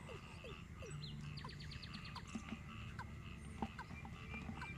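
Small birds chirping and calling: many quick falling chirps, with short rapid trills of high repeated notes.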